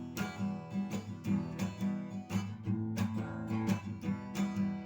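Instrumental song intro: a guitar strummed in a steady rhythm, about three strokes a second, over held low notes.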